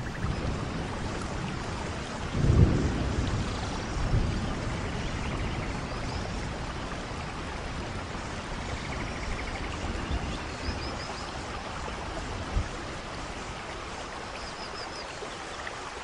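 Steady rush of falling water inside a large planted rainforest vivarium, with a few low thumps, the loudest about two and a half seconds in, and a few faint short high chirps.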